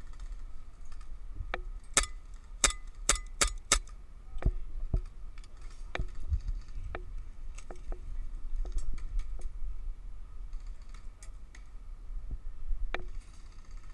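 Airsoft guns firing: scattered sharp snaps, with a quick run of about six shots between two and four seconds in.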